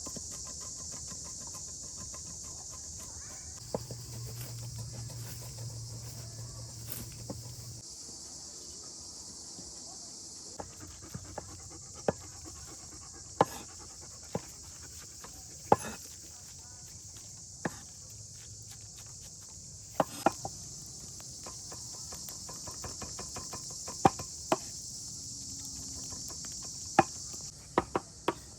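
Steady high-pitched chorus of insects, likely crickets, with sharp clicks and knocks every second or two.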